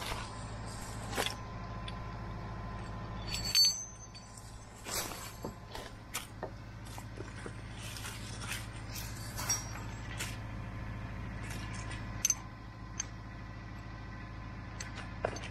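Compact tractor engine idling steadily in the background. Over it come irregular crunches and rustles of footsteps in dry leaves, with clicks of a steel winch cable being pulled out and handled.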